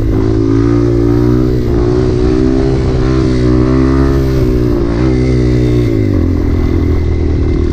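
Dirt bike engine running hard under throttle as the rider pops the clutch and lifts the front wheel into a wheelie. The pitch wavers slightly and drops a little about six seconds in as the throttle eases.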